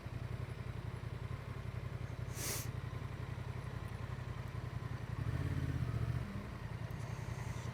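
Honda Transalp XL750's parallel-twin engine running steadily under way, with a short hiss about two and a half seconds in and the engine note getting louder for about a second a little past the middle.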